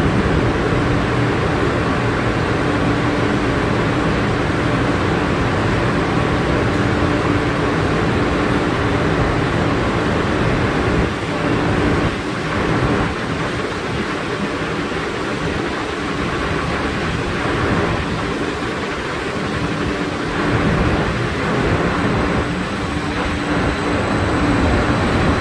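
Calgary Transit CTrain light rail train running alongside the platform: a steady rumble with a low hum.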